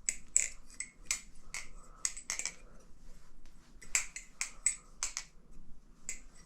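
An LDY Corvus balisong trainer being flipped: its handles clack against the blade and pins in an irregular run of sharp clicks, sometimes two or three in quick succession, with a short pause about halfway through.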